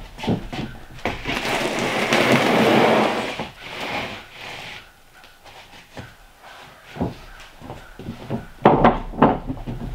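A sheet of subfloor panel scraping as it is slid onto a stack of panels for about two seconds, then scattered knocks of footsteps and handling on the wooden boards.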